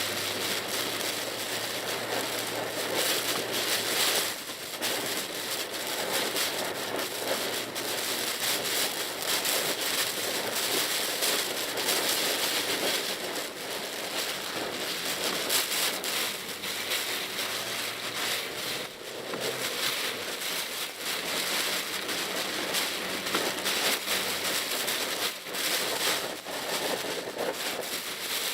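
Heavy typhoon rain striking a small car's windshield and roof, heard from inside the cabin: a dense spatter of drops over tyre noise on the wet road. A low, steady hum from the Mitsubishi Pajero Mini's engine runs underneath.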